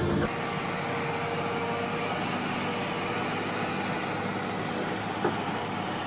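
Music cuts off just after the start, giving way to the steady running noise of railway track-laying machinery, an even mechanical rumble with a faint low hum. A single short knock sounds about five seconds in.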